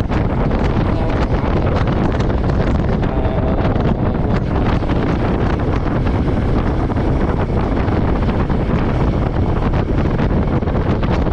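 Steady wind rush on the action camera's microphone as a Royal Enfield Meteor 350 rides along, with the bike's single-cylinder engine running underneath.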